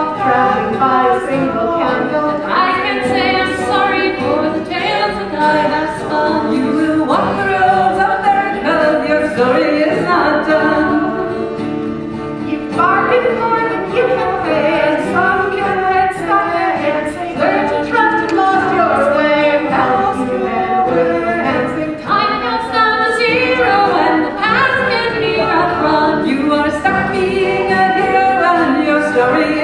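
A group of women singing a filk song together in harmony, with guitar accompaniment.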